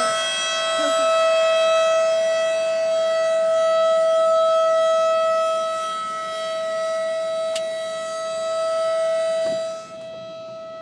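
Tornado warning siren sounding its test, a very loud steady single-pitch tone heard at close range, its loudness slowly swelling and fading. A little before the end it drops sharply in loudness and turns duller while holding the same pitch.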